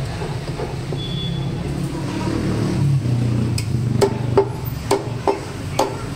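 Butcher's cleaver chopping goat mutton into pieces: sharp, regular strikes, a little over two a second, starting about three and a half seconds in. A steady low traffic rumble runs underneath.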